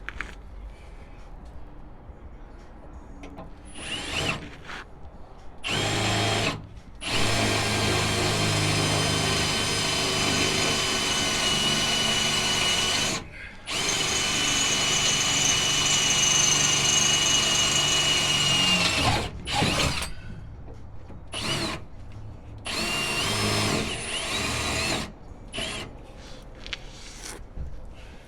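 Electric drill boring into the steel frame rail of a truck, its motor whining steadily. It starts with a few short bursts, then runs in two long stretches of about six seconds each, then in several short bursts near the end.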